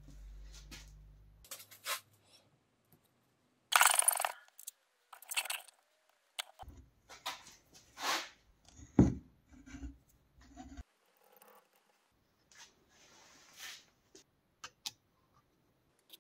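Scattered scrapes, taps and clicks of small metal and plastic parts handled at a bench vise as a ball bearing is pressed into a 3D-printed housing with a socket, with one sharp knock about nine seconds in. A low hum runs for the first second and a half.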